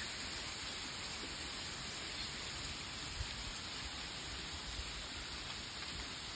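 Steady outdoor background hiss with a faint low rumble underneath.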